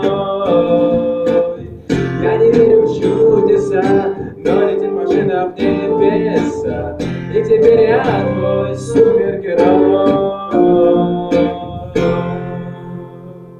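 Instrumental closing passage of a pop song, led by strummed guitar, ending on a held chord that fades away near the end.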